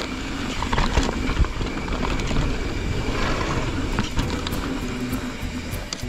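Mountain bike being ridden over a rough dirt trail: steady rolling and tyre noise with frequent knocks and rattles as the bike goes over bumps.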